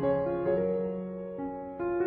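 Slow, gentle piano music: soft notes over sustained low tones, easing to a held chord in the middle before new notes come in near the end.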